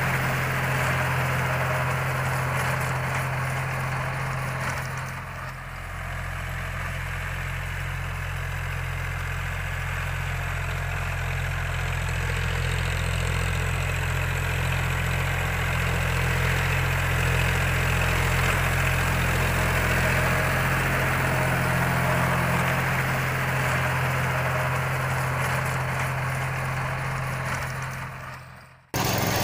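Diesel engine of a John Deere utility tractor running steadily under load as it pulls a rotary tiller through dry soil. The sound fades away just before the end.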